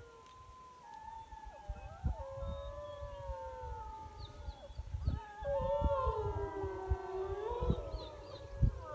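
A pack of wolves howling together: several long, gliding howls overlapping at different pitches, louder in the second half.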